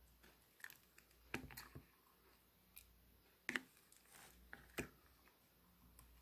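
Hands playing with slime, making scattered soft clicks and small pops, with a few louder clicks among them.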